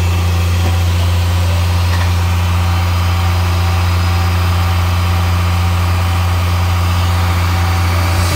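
Isuzu Giga FVZ truck's six-cylinder diesel idling steadily with a deep, even hum, running again after a weak battery kept it from starting.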